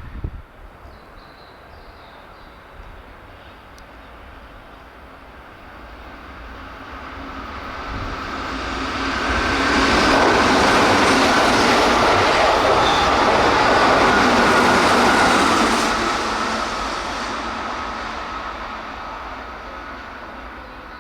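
Keihan 8000 series electric train passing through the station without stopping at about 108 km/h. Its noise builds over several seconds, runs loud for about six seconds as the cars go by, with wheel-on-rail noise and a steady high whine, then fades away.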